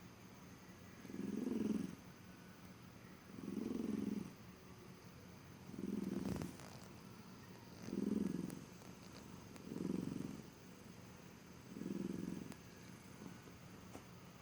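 A sleeping pet snoring: six low, rhythmic snores, one about every two seconds, each lasting under a second. A single sharp click about six seconds in.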